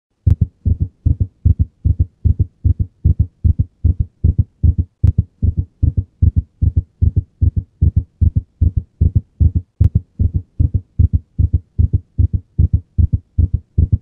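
Heart sounds in ventricular tachycardia: a fast, regular run of short low thuds, about three a second. The rhythm is regular, the rate high, and the heart sounds can be split, since one ventricle depolarises before the other.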